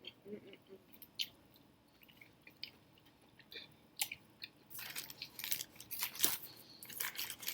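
Close-up chewing and mouth sounds of someone eating fried chicken and mashed potatoes: scattered soft wet clicks, denser and louder in the last few seconds.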